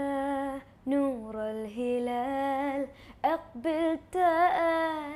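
A girl singing unaccompanied in Arabic, the opening phrases of a Ramadan song. She holds long notes that waver with vibrato, with short breaks between phrases.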